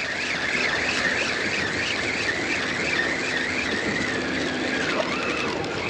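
Spinning reel cranked quickly to bring in a small hooked fish: a wavering gear whine that rises and falls about three times a second, slowing and dropping in pitch near the end. Wind rushes on the microphone throughout.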